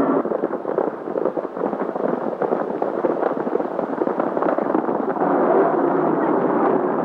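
Hoofbeats of several horses galloping, a rapid irregular clatter; near the end a car engine running steadily comes in under it.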